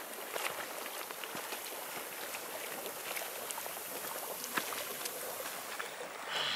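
Hot spring water welling up from the bottom of a natural pool, a steady bubbling and fizzing dotted with small pops.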